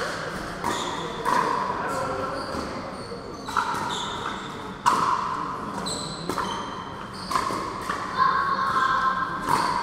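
Pickleball rally: paddles striking the hard plastic ball in repeated sharp pops, about one to two a second and irregularly spaced, each echoing in a large hall.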